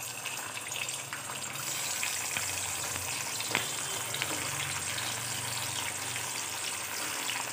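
Balushahi dough rings deep-frying in hot oil in a kadhai: a steady sizzle as more rings are slid into the oil. One short click about three and a half seconds in.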